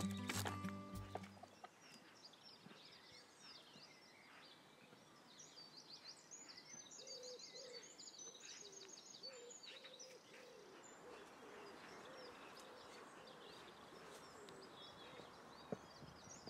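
Faint outdoor ambience with birds calling: clusters of high chirps through the middle, with a lower call repeated many times underneath. Music fades out in the first second or two, and there is a single click near the end.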